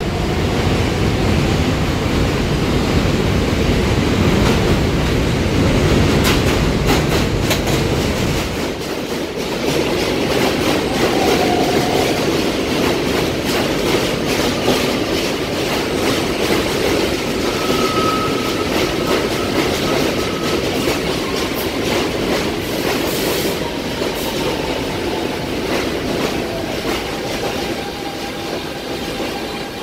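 R160 subway train with Siemens propulsion pulling into the station and rolling along the platform. A loud low rumble for the first eight seconds or so gives way to rapid clickety-clack of the wheels over the rail joints, with a couple of short wheel squeals.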